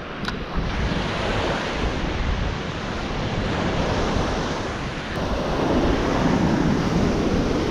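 Ocean surf washing onto the beach, with wind buffeting the microphone; a short click sounds just after the start.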